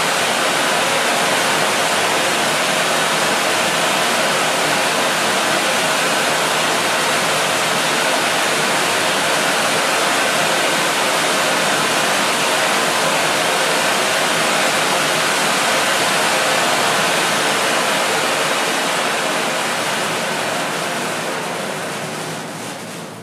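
Pyrotechnic stage fountain spraying silver sparks: a steady, loud rushing hiss that fades over the last few seconds as the fountain burns out.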